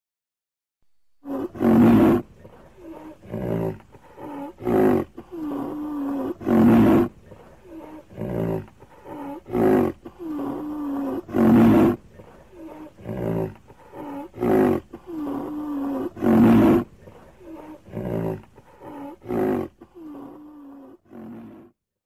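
Rhinoceros calls: loud, breathy snorts alternating with short low-pitched calls, in a sequence of about five seconds repeated about four times.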